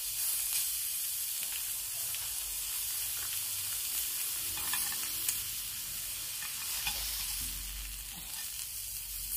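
Black pork slices sizzling on a hot grill pan: a steady high hiss of frying fat, with a few faint clicks.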